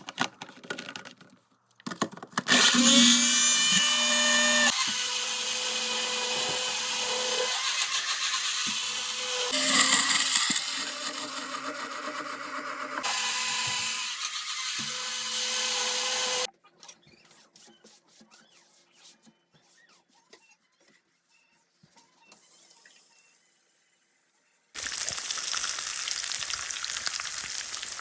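Electric blender motor running for about fourteen seconds with a hum whose pitch shifts as it grinds, started and stopped with a few clicks. Then a few quiet handling clicks, and near the end the steady sizzle of food frying in hot oil begins.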